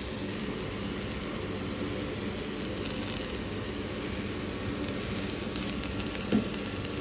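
Sliced button mushrooms and chopped onion sizzling in a non-stick frying pan over a steady low hum, with a brief thump about six seconds in.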